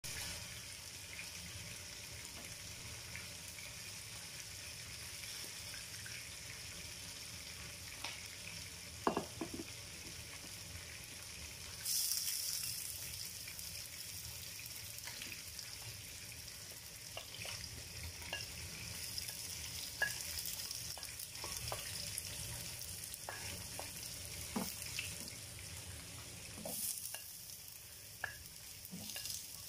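Hot oil sizzling in a frying pan; about twelve seconds in, chopped garlic goes in and the sizzle jumps up, then settles to a steady hiss with scattered light taps. Near the end chopped onions are added and the sizzle rises again.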